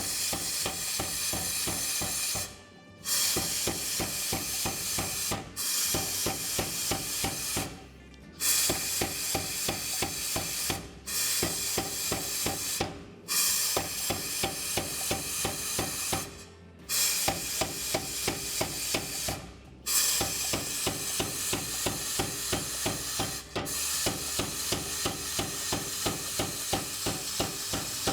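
Power hammer striking a hot W2 steel bar in rapid, even runs of blows, pausing briefly every few seconds, as the round stock is squared off.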